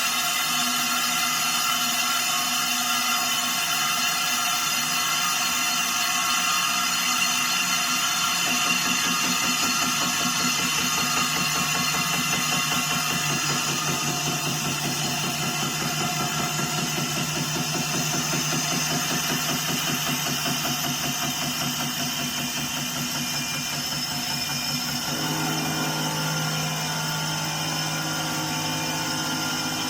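Industrial wheel repair machine running with a steady mechanical hum. About 25 seconds in the sound changes: a new low hum comes in and higher tones start sliding up and down.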